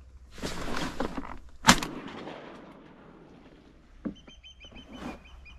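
A single shotgun shot about a second and a half in, fired at a duck that flew in unseen, ringing out briefly afterward. A second or so of rustling comes before the shot.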